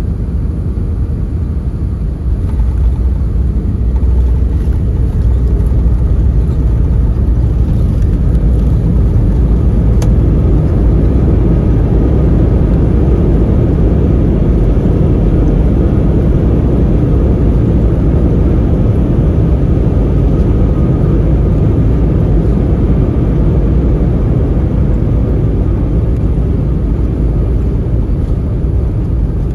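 Cabin roar of an Airbus A319's landing rollout: runway rumble with the IAE V2522-A5 engines' roar stepping up about two seconds in, as when reverse thrust is applied, then holding and easing off slowly as the aircraft decelerates.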